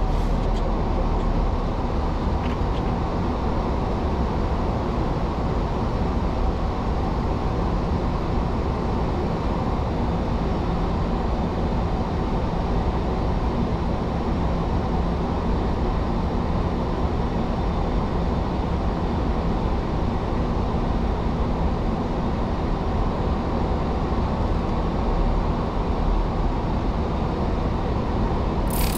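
Steady rushing airflow and engine hum inside a Boeing 737-800 flight deck, descending on approach with flaps extended.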